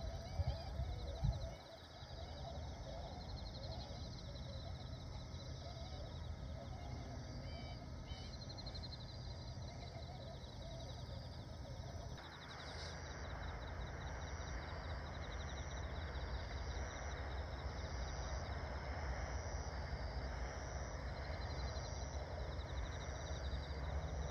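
Distant waterfowl calling in a rice-field flock of tundra swans and greater white-fronted geese, over a fast, even insect chirping and a steady low rumble of wind. There are a couple of loud bumps about a second in, and the background noise grows louder about halfway through.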